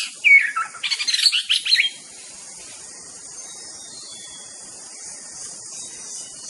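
White-rumped shama (murai batu) singing: whistled notes that slide up and down, then a quick run of sharp, high notes, stopping about two seconds in. After that there is only a steady high hiss, with a faint thin whistle.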